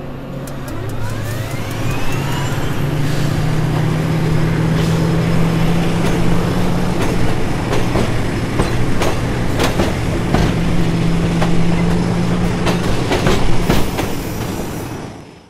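HO-scale model railcar running along the track: a steady electric motor hum and wheel rumble with scattered sharp clicks, and a rising whine in the first couple of seconds.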